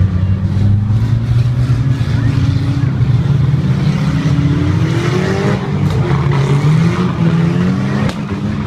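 Several banger-racing cars' engines running hard around the track, with revs rising in pitch about four to six seconds in.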